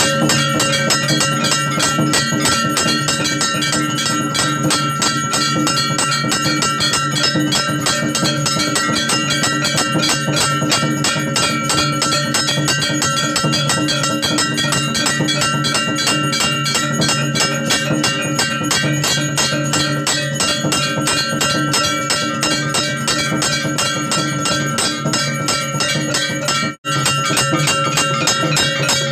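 Temple aarti music: bells rung in a fast, continuous stream over drumming, with steady ringing bell tones. It breaks off for an instant near the end.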